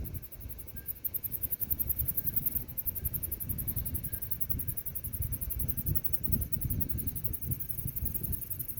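Insects chirring in a fast, steady, very high-pitched pulse, over a low, uneven rumble.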